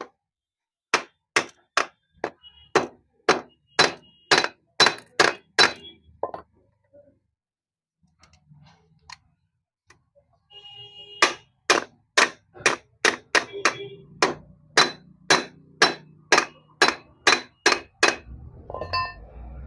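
Hammer striking rivets into a motorcycle clutch housing, about two or three sharp metallic blows a second with a short ring. There is a run of about a dozen blows, a pause of several seconds, then a longer run of about seventeen.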